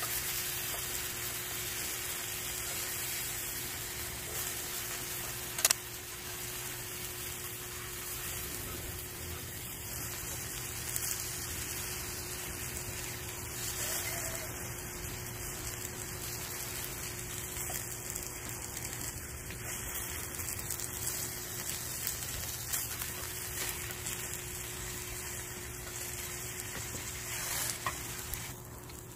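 Gopchang (coiled intestines) sizzling steadily in a hot frying pan, with metal tongs stirring and scraping in the pan. One sharp click about six seconds in.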